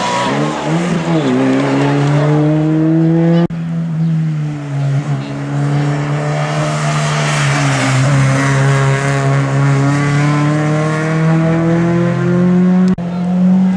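Race car engine running at high revs, its pitch climbing steadily between sharp breaks about three and a half seconds in and again near the end.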